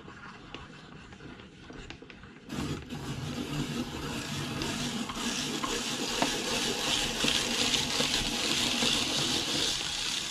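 Hand-cranked cast-iron apple peeler-corer-slicer being turned: the threaded shaft drives the apple past the peeling blade and the coring and slicing blade, shaving off the peel and cutting the flesh into a spiral. The steady scraping starts abruptly about two and a half seconds in.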